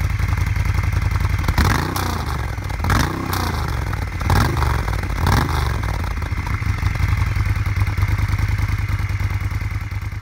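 Moto Guzzi Griso's transverse V-twin engine idling, the throttle blipped four times in the first half, each rev rising and falling quickly. After the blips it settles back to a steady idle.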